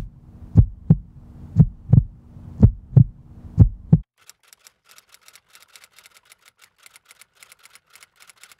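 Outro sound design: heavy bass thumps in pairs, like a heartbeat, about one pair a second over a low steady drone, which cut off suddenly about four seconds in. Then come faint, quick, light clicks like typing, running until near the end.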